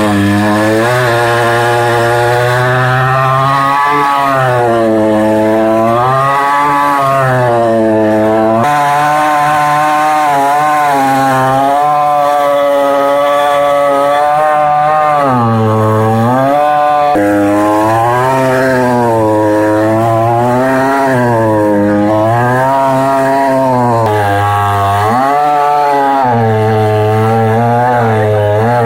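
Chainsaw running loud and continuous while cutting wood, its engine pitch repeatedly dipping and recovering as the chain bites and frees.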